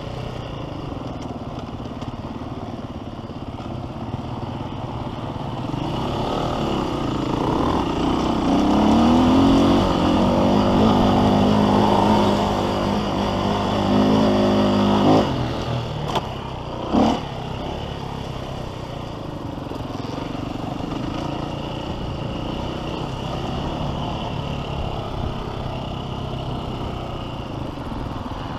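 Dirt bike engine heard from an onboard camera while riding a motocross track. The engine revs up hard under acceleration from about six seconds in and cuts off abruptly at about fifteen seconds as the throttle closes. Two short bursts follow, and the engine runs steadily for the rest.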